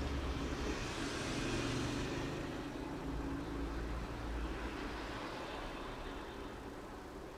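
Steady background rumble and hiss, swelling twice and easing off slightly toward the end.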